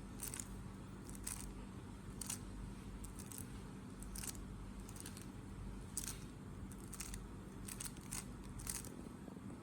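3x3 Rubik's cube being turned through an OLL algorithm: a dozen or so short plastic clicks and scrapes at an irregular pace as the layers turn.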